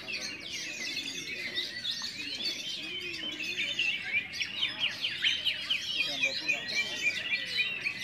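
Many oriental magpie-robins singing at once, a dense overlapping chorus of quick whistles and chirps that grows fuller and louder about halfway through. Faint voices murmur underneath.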